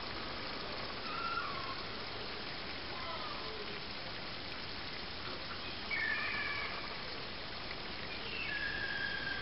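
Gulls calling: several short, clear calls, the longest near the end, over a steady background hiss.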